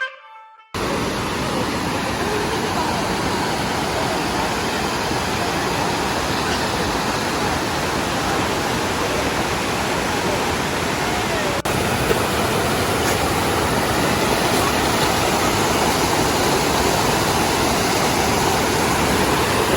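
Rushing water: a steady, even noise with a brief dip a little past the middle.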